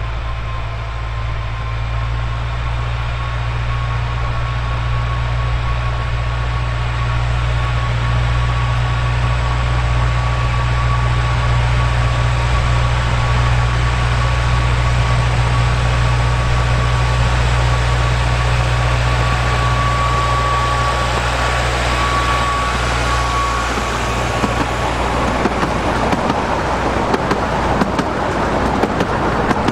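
Narrow-gauge diesel locomotive's engine running steadily with a thin whine as it approaches, growing slightly louder. About 25 seconds in, the engine drone drops away and the coaches rattle past with sharp clicks from the wheels.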